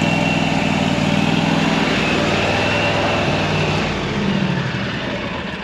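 Toro Z587L zero-turn mower engine running steadily at idle with a faint high whine, easing off a little near the end. The engine is at running temperature, yet the electric radiator cooling fan has not switched on.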